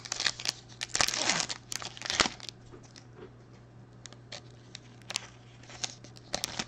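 Foil wrapper of a Panini Prizm football card pack being torn open and crinkled by hand: crackling tears, loudest in the first two and a half seconds, then scattered crinkles.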